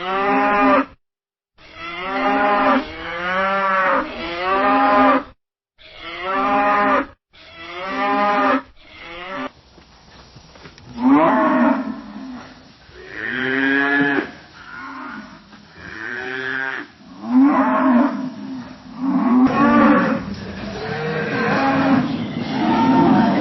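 Cattle mooing: a series of drawn-out pitched moos, each rising and falling in pitch, separated by short gaps at first and coming closer together, overlapping, from about ten seconds in.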